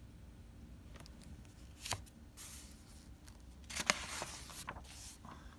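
A picture book's page being turned by hand: a short tap about two seconds in, then soft paper rustling and swishing.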